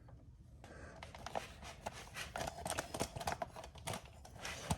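Faint, irregular clicks and rattles of small metal parts being handled: a chain breaker tool being fitted onto a motorcycle drive chain.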